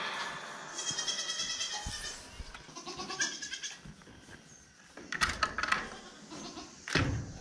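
Goats in a pen bleating in the first few seconds, followed by a few sharp knocks from the pen's wooden gate and latch being handled.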